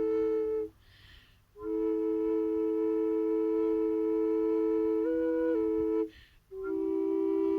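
Double drone flute (Flöten des Herzens 'Panther', tuned to E minor) playing a slow, gentle tune: a steady low drone note sounds under a melody note that steps up and back down. The playing stops twice for breath, about a second in and again near the end, with the soft inhale audible in each gap.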